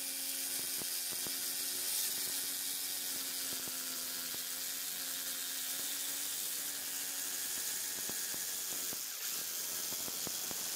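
Electric jigsaw running, its reciprocating blade cutting through a dark wooden plank: a steady motor hum under a hissing sawing noise with small clicks. The hum's tone fades out about seven seconds in while the cutting noise carries on.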